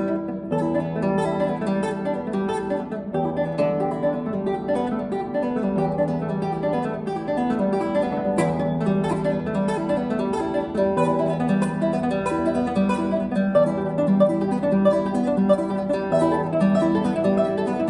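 Solo classical guitar played by hand: a continuous stream of quick plucked notes.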